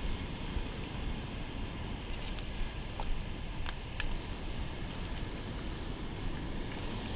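Steady low rushing noise of wind buffeting the microphone, mixed with water pouring over a river spillway, with a few faint clicks about three to four seconds in.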